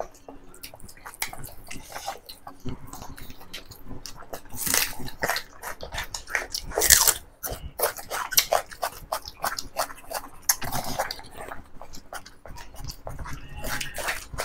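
Close-miked eating by hand: chewing and lip-smacking on mouthfuls of chicken curry and rice, with fingers working through the rice on the plate, a dense run of small wet clicks and short squelches.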